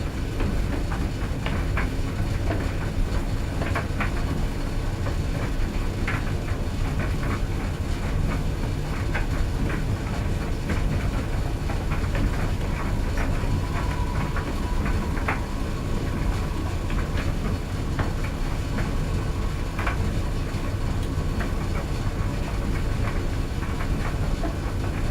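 Clothes dryer running: a steady low rumble from the turning drum, with irregular light clicks and knocks over it.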